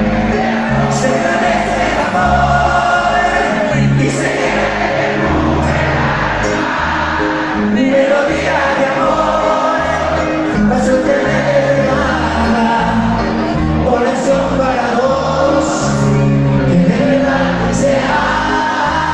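Live band music with singing, heard from the audience: steady bass notes under voices that carry the melody without a break.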